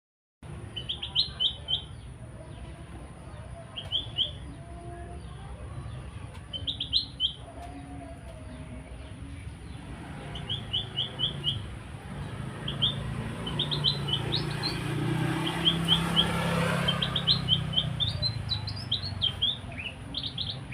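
A small songbird chirping in quick bursts of three to five high notes, a burst every few seconds at first and more often in the second half. Under it runs a low steady hum, and a broad swell of noise builds and fades in the second half.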